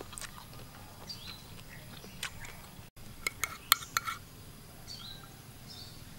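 Metal spoon clinking and scraping against a ceramic plate while scooping food, with a quick cluster of clinks about three to four seconds in. Faint bird chirps in the background.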